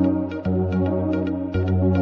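Electronic background music with a steady beat over a sustained bass line whose note changes about every second.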